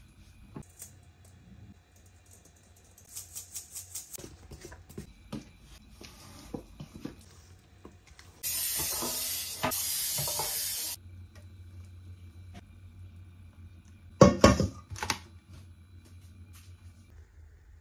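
Baking handling sounds at a stainless steel mixing bowl: a mesh sieve tapped quickly, about five light ticks a second, to sift flour, then soft scrapes of thick batter being folded. Midway come two loud hissing bursts of about a second each. Near the end there are a few loud knocks.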